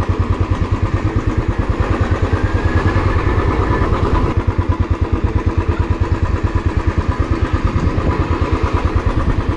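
Royal Enfield Classic 350's single-cylinder engine running at low revs, a steady rapid pulsing beat.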